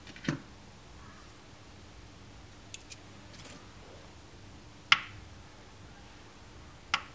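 A few short handling sounds on a digital kitchen scale. There is a dull knock just after the start as something is lifted out of its plastic bowl, and two faint ticks near three seconds. Two sharp clicks follow, about five and seven seconds in, as a finger presses the buttons on the scale's panel.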